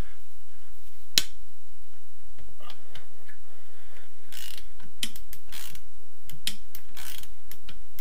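Half-inch-drive ratchet wrench on a socket undoing a stubborn crankcase bolt: one sharp click about a second in, then the pawl rasping in short runs each time the handle is swung back. The bolt's threads are flaking metal, which the owner takes as a sign that something is not right with them.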